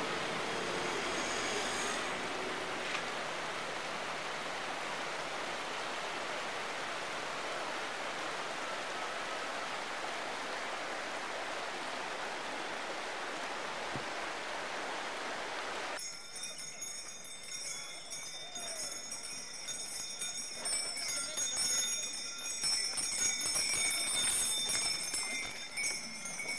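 A steady rushing noise for the first sixteen seconds, then a sudden cut to the jingling of harness bells on a horse-drawn sleigh, ringing on unevenly to the end.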